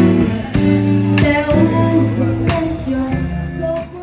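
Music: a woman singing held notes over instrumental backing, loud and continuous, stopping abruptly at the end.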